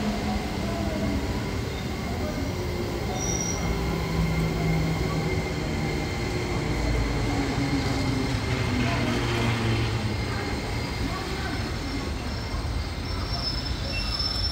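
Freight train hauled by an EF65 electric locomotive approaching along the line: a steady rail rumble with brief high wheel squeals about three seconds in and again near the end.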